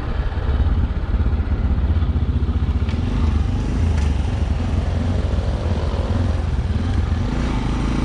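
Motorcycle engine running at a steady cruise under the rider, a low rapid pulse with a constant rush of wind and road noise over the onboard microphone.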